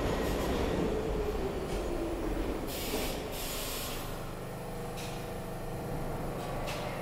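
R62 subway train pulling into the station and braking to a stop: its motor whine falls steadily in pitch over the first couple of seconds, then two loud bursts of air hiss about three seconds in, a few clicks, and a steady hum once it has stopped.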